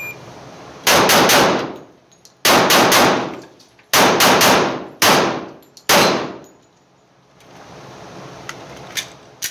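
HK45C .45 ACP pistol firing in three quick strings of about three shots each, then two single shots about a second apart, each string ringing out in the reverberant indoor range.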